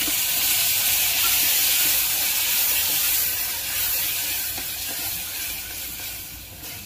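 Pureed tomato sizzling and hissing as it hits hot oil and fried onions in an aluminium pressure cooker pan, throwing off steam. The hiss is loudest at first and fades over the last few seconds.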